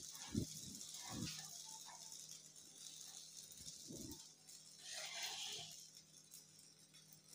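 Faint sizzling of a dosa cooking on a hot iron tawa, with a few soft knocks and, about five seconds in, a scrape as a metal spatula is slid under the edge of the dosa.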